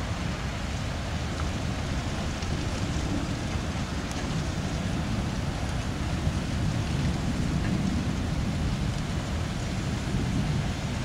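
Thunderstorm downpour with gusty wind: a steady hiss of heavy rain under a low rumble of wind buffeting the microphone, with no clear thunderclap.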